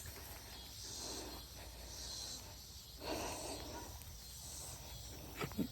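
Faint breathing, a few soft breathy puffs over a steady background of insects chirping.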